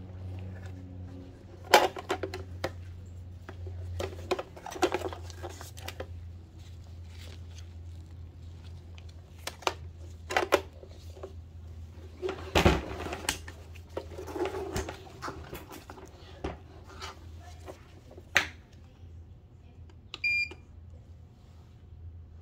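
Handling noise from a plastic-cased portable jump-starter power station: scattered knocks and clicks of the hard case, air hose and clamp being moved and set down on a plastic workbench, over a steady low hum. Near the end, one short electronic beep from the unit.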